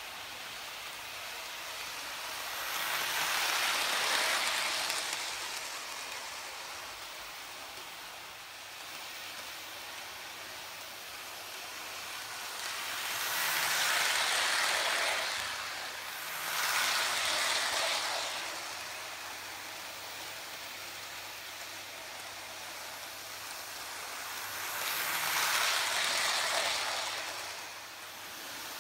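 Hornby Dublo OO-gauge LNER A4 'Sir Nigel Gresley' model train running round a layout: a steady rolling rush of metal wheels on the track, swelling louder four times as the train passes close by.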